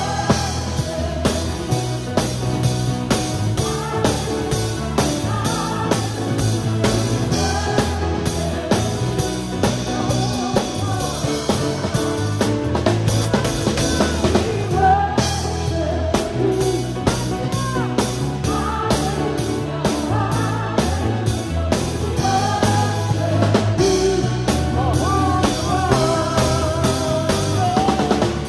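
Live worship band playing: a drum kit close up and loud, with electric guitars, bass and keyboard, while a choir and lead singers sing the melody.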